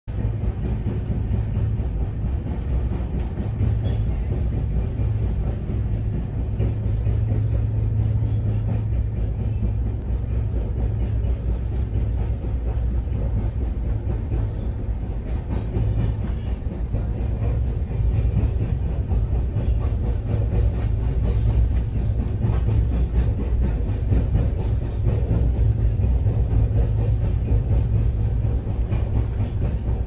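Passenger train running steadily, heard from on board: a continuous low rumble with a faint clatter of the wheels on the track.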